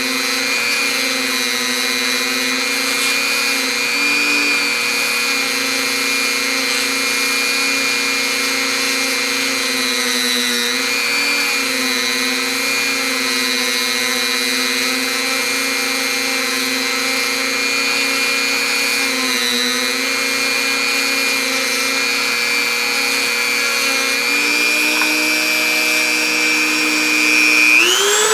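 Small high-speed power tool running steadily, cleaning up the edges of a ratchet part, its pitch dipping briefly now and then as it bears on the metal. Its pitch steps up near the end, and it is switched off and spins down at the very end.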